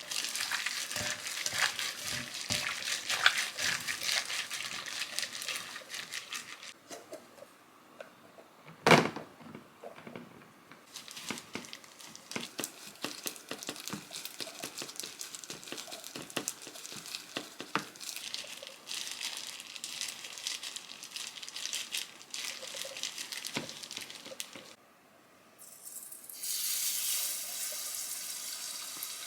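Kitchen handling noises: crinkling, rattling and knocks, with one sharp knock about nine seconds in. Near the end, a steady sizzle of food starting to fry in a pan begins.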